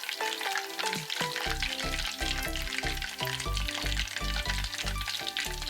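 Batter-coated chicken wings deep-frying in hot oil, a steady sizzle throughout. Background music plays over it, with a bass beat coming in about a second and a half in.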